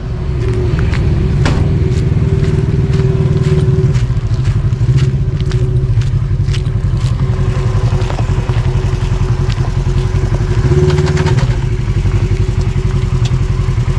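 Car driving over a rough gravel road, heard from inside the cabin: a steady engine and road drone with scattered knocks and clatter as it bumps along.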